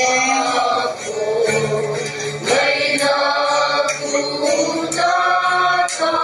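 A group of people singing a song together in long held notes, with a woman's voice amplified through a handheld microphone and portable loudspeaker, accompanied by acoustic guitar.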